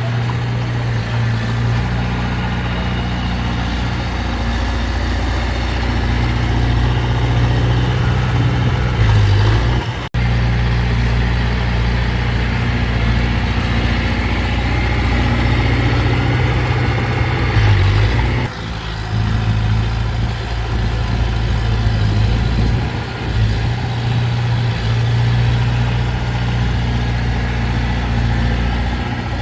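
Heavy diesel earthmoving machinery running steadily, a deep engine hum. It breaks off for an instant about ten seconds in and changes abruptly a little past halfway.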